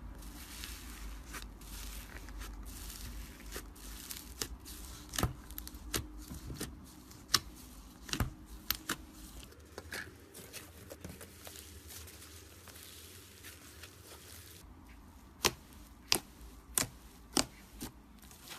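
Slime being handled close to the microphone: irregular crackling and sharp sticky pops over a faint hiss, ending in a run of five loud pops about half a second apart.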